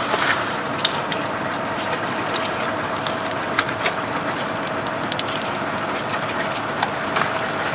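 Burning dry grass crackling, with irregular sharp snaps and pops over a steady rushing noise and a faint steady hum.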